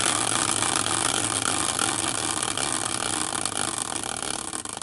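Hand-spun prize wheel made from a caster wheel, spinning fast with a rapid, even rattle of clicks that slowly loses strength as the wheel loses speed.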